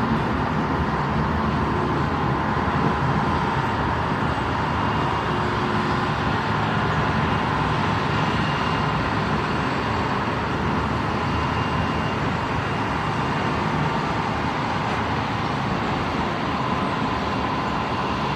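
CSX freight train rolling past, a steady rumble of wheels on rails with faint, steady high-pitched tones running over it.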